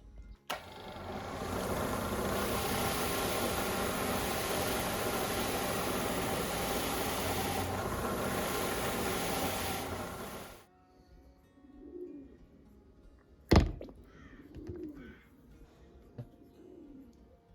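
A workshop power tool runs steadily for about ten seconds, a loud hissing mechanical noise, then cuts off suddenly. A sharp knock follows a few seconds later, with a pigeon cooing softly in the background.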